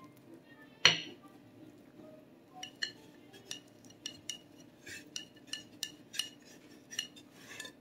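Metal icing spatula clinking against the glass pie plate under a cake as icing is spread on the sides. One louder knock about a second in, then a run of light ringing clinks, about two a second.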